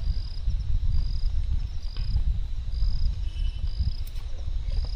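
Wind buffeting the microphone with a fluctuating low rumble, over forest creatures calling: short high chirps repeat about once a second above a thin, steady high whine.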